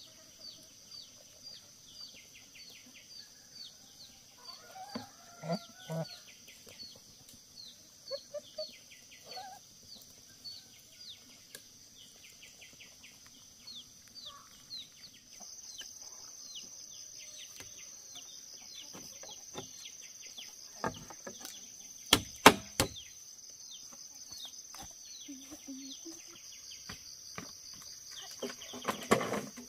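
Outdoor ambience with a steady high insect drone and a rapidly repeated falling chirp, a few short calls from geese in the first third, and a cluster of loud sharp knocks about two-thirds through, followed by wooden clattering near the end.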